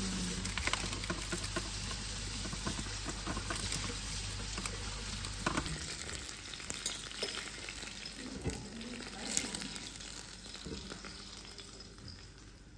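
T-bone steak sizzling as it fries in a pan, a steady crackling sizzle that slowly dies down, with a few light clicks over the second half.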